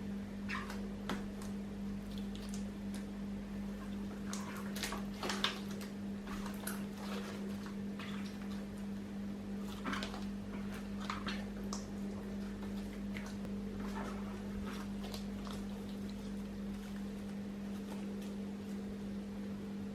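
Slime being worked by hand: scattered soft squishes and crackles, most around five and ten seconds in, over a steady low hum.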